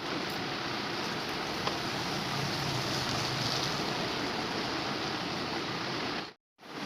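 Steady rain falling, an even continuous hiss that cuts off suddenly near the end.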